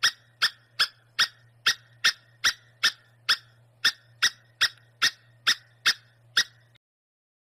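A short, high squeak repeated evenly about two and a half times a second, sixteen in all, over a low steady hum. The squeaks and hum stop abruptly near the end.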